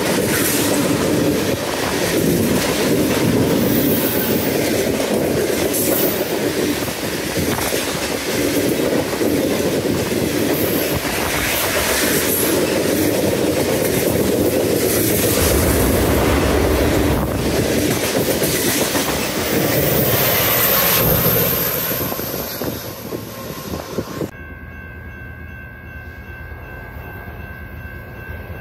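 Freight train of boxcars, flatcars and tank cars passing close at speed: a steady rumble of wheels with a rhythmic clickety-clack over the rail joints. About three-quarters of the way through, the sound cuts off abruptly to a much quieter, steady background with a few thin tones as a distant train approaches.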